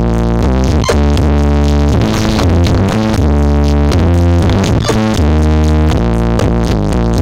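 Electronic dance music played very loud over a large RCF speaker system with 60 subwoofers: heavy, sustained bass notes that change every second or so under a synthesizer melody.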